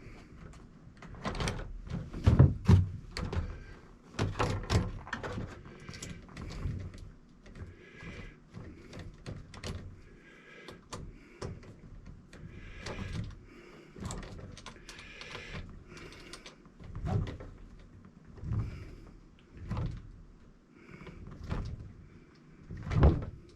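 Irregular clicks, knocks and dull thuds of hand work on an RC truck's wheel, with a small wrench and plastic parts being handled. A few louder knocks stand out, one about two and a half seconds in and one near the end.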